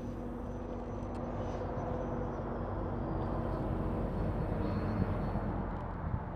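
Electric ducted-fan whine of a Freewing F-22 90 mm RC jet in flight, steady, with a faint high tone that slowly falls in pitch, over a low rumble.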